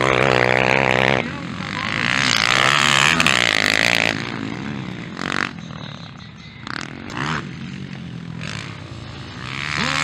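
Motocross dirt bike engines revving hard as bikes pass on the track, the engine note rising and falling with throttle and gear changes. It is loud at first, drops to a quieter spell in the middle with a few short revs, and is loud again near the end.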